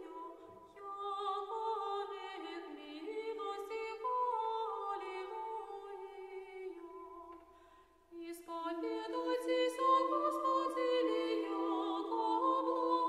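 Unaccompanied Orthodox church chant: voices singing slow, held melodic lines that move in small steps. The singing breaks off briefly about eight seconds in, then resumes.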